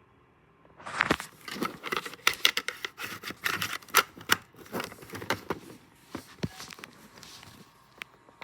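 Irregular clicking, scraping and rustling of objects being handled at close range, starting about a second in.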